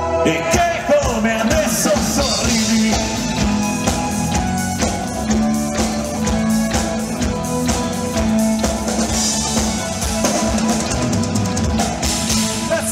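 Live rock band playing an instrumental passage: a full drum kit comes in about half a second in, over electric guitar, bass and sustained keyboard notes.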